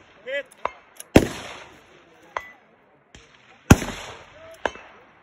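Two shots from a scoped bolt-action precision rifle fired prone off a bipod, about two and a half seconds apart, each with a short echo. Fainter sharp cracks come in between the shots.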